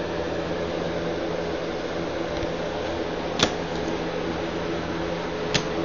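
Steady hum of running room ventilation, with several held low tones. Two light, sharp clicks, about three and a half and five and a half seconds in, as trading cards are handled on the tabletop.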